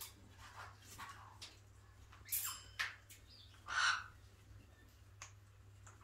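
White-bellied caique giving short, harsh squawks and chirps, the two loudest about two and a half and four seconds in, with a few small clicks between them.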